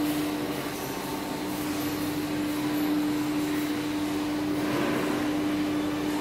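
Steady machinery hum with a constant droning tone over an even background noise.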